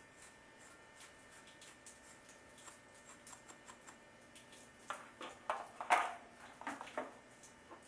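Wire brush scrubbing the inside of a brass dielectric union fitting to clean it before soldering. Faint scratching at first, then several louder scrubbing strokes from about five seconds in.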